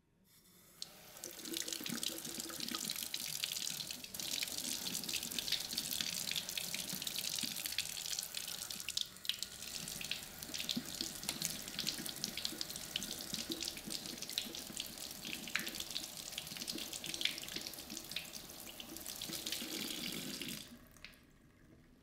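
Kitchen mixer tap running, with water splashing over a cylindrical vacuum filter held under the stream to rinse it. The water comes on about half a second in, builds over a second or so, and stops about a second before the end.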